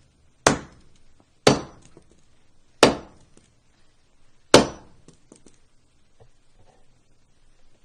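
Four sharp, hard impacts at uneven intervals, each with a short ringing clink as it fades.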